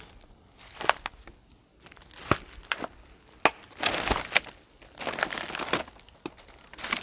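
Footsteps over litter-strewn ground: plastic rubbish, dry grass and debris crinkling and crunching underfoot in uneven steps, with sharp cracks among the rustles.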